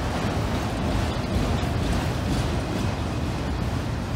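Freight train of empty auto rack cars rolling past close by: a steady rumble of steel wheels on rail.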